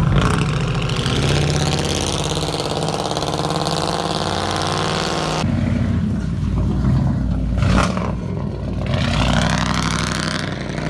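Mercury Grand Marquis V8 engines running and revving as the cars pull away, rising in pitch over the first few seconds. The sound cuts abruptly to a different car about five and a half seconds in.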